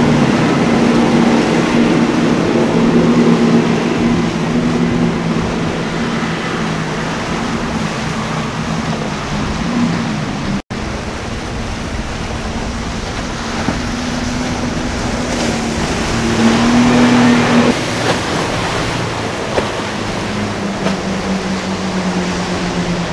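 Motorboat engines running at speed, a steady drone under the rush and hiss of the hull's wake and spray through choppy water. First a center-console boat's outboard motors, then, after a sudden brief dropout about halfway, an express cruiser's engines over its wash.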